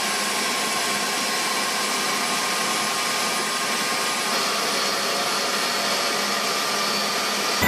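UH-60 Black Hawk helicopter running on the ground, heard as a steady rush of its turbine engines with a faint high whine over it.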